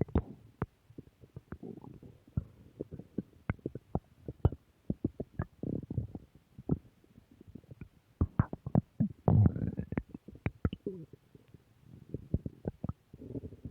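Human stomach growling: a run of short gurgling pops and bubbling rumbles, irregular and coming in quick clusters. The loudest stretch comes about nine seconds in, a longer gurgle that rises in pitch.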